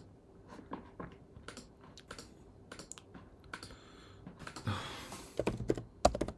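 Typing on a computer keyboard: scattered key presses, then a short rush of noise and a run of louder key clicks near the end.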